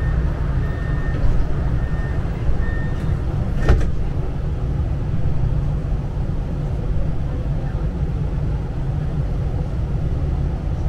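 Interior of a tram: a steady low rumble. During the first three seconds a short high electronic beep repeats about once a second, and a single sharp knock comes just under four seconds in.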